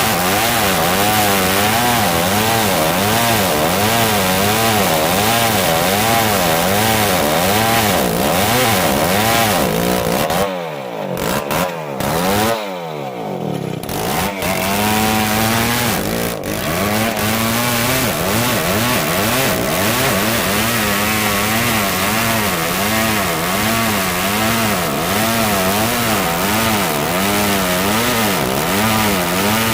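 Old chainsaw cutting dry merbau hardwood, its engine pitch rising and falling steadily under load. About ten seconds in it drops off briefly, then revs back up and carries on cutting.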